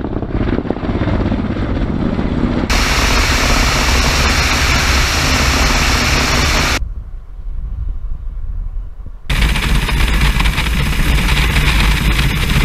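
Ka-52 attack helicopter in flight: a steady rotor and turbine rumble, heard close on the airframe with a loud rush of wind over the microphone. The sound changes abruptly between shots, with a quieter stretch of low rumble alone just before the middle.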